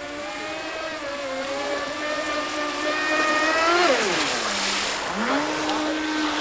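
Battery-powered RC speedboat's electric motor whining at speed. The pitch climbs as the boat comes in, drops sharply about four seconds in as it sweeps past at its loudest with a hiss of spray, then rises again and holds steady.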